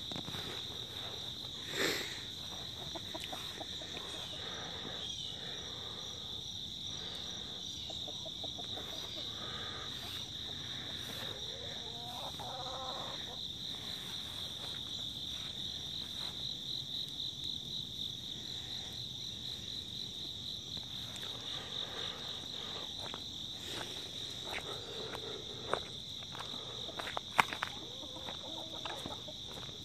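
Steady, high-pitched chorus of insects trilling, with a fine pulsing flutter, and chickens clucking softly now and then. A few sharp clicks sound near the end.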